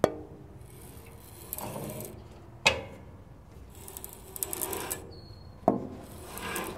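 Bandsaw blade and band wheel of a Woodland Mills sawmill being turned slowly by hand, the blade rasping as it runs over the wheel and through the guides. Three sharp knocks come about three seconds apart. The wheel is being turned to check the new blade's tracking.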